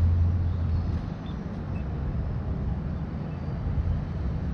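Low rumble of downtown street traffic, heaviest in about the first second and then steady.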